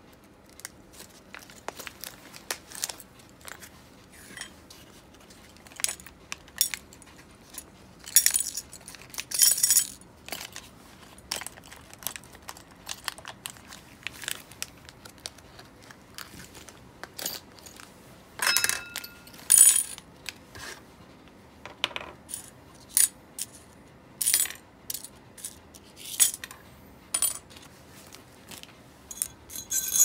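Small metal parts clicking and clinking as they are handled, in irregular light taps with louder clusters, and one brief metallic ring a little past halfway.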